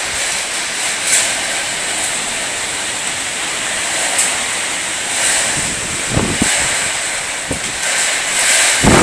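Strong storm wind rushing steadily, with gusts buffeting the phone's microphone briefly about six seconds in and more heavily near the end.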